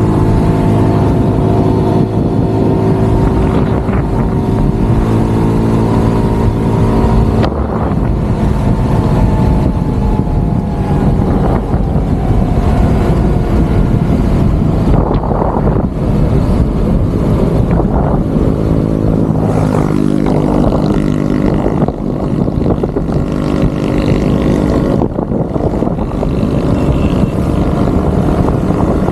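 Motorcycle engine running at road speed, with wind rushing over the camera's microphone. The engine note changes abruptly about seven and a half seconds in, then rises and falls with the throttle.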